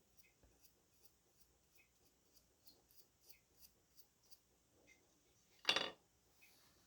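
Light, quick rubbing strokes on wood, about three a second, as wood stain is worked into the surface; one louder short noise about three-quarters of the way through.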